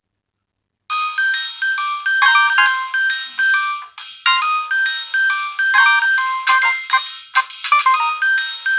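Nokia 2600 classic ringtone starting suddenly about a second in: a quick electronic melody of clean stepped notes with several parts playing at once.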